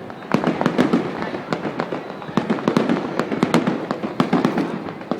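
Fireworks display: many rapid, irregular cracks and bangs over a continuous rumble.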